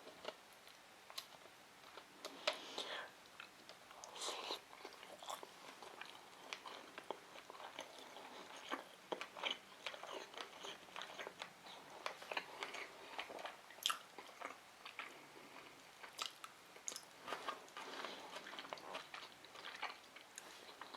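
A person chewing sushi rolls, with many small, irregular mouth clicks and soft chewing sounds, quiet and close.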